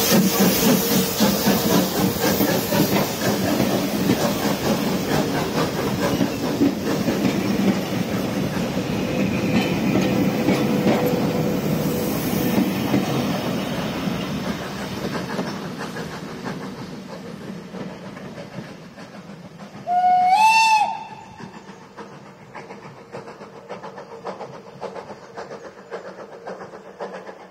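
Steam-hauled train behind an LMS 4F 0-6-0 locomotive passing close by, its coaches' wheels clicking over the rail joints, the sound fading as the train draws away. About twenty seconds in, the locomotive's steam whistle sounds once, a short blast that slides up in pitch.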